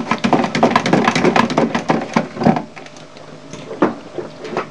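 Handling noise at a plastic hydroponic tank: a dense run of quick clicks and knocks for about two and a half seconds, then a few single knocks.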